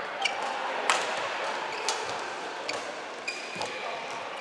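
Badminton rally: sharp racket-on-shuttlecock hits about once a second, with short squeaks of court shoes on the floor, echoing in a large hall.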